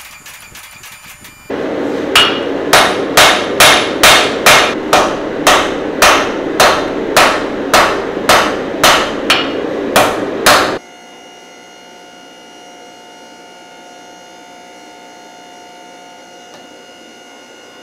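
Hand hammer striking a red-hot knife blade on an anvil: about seventeen ringing blows at roughly two a second over a steady rushing noise. The blows stop abruptly about ten seconds in, leaving a faint steady hum.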